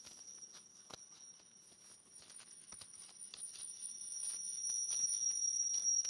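High-pitched audio feedback whistle from a microphone looped through a computer and camcorder: a steady tone with a fainter, higher tone above it, over scattered clicks and crackles. It grows louder over the second half.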